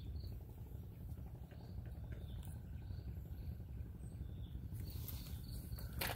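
Outdoor forest ambience: faint short bird chirps repeating over a low steady rumble, with a brief loud knock just before the end.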